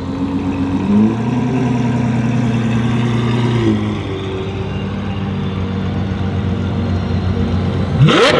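Performance car engine running at a low, steady speed, its pitch stepping slightly a couple of times, then revved sharply upward near the end.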